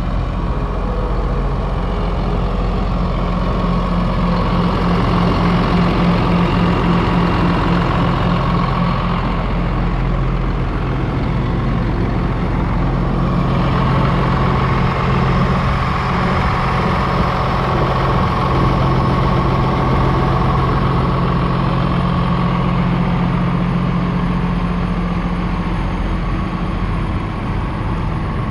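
Hino 268 truck's six-cylinder diesel engine idling steadily.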